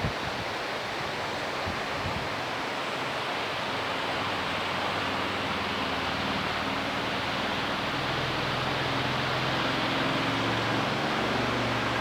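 Steady hiss of heavy rain. A low steady hum joins it from about halfway through.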